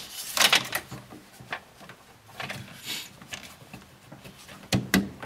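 Plastic clicking and scraping as a 9007 Bi-Xenon HID bulb is jiggled by hand in the headlight housing to find its grooves, with two sharper clicks near the end.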